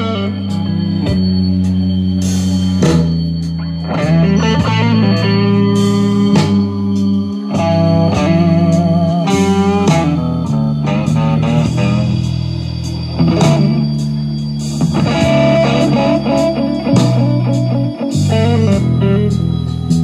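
Bose Home Speaker 300 playing its store demo music: plucked guitar over a steady low bass line.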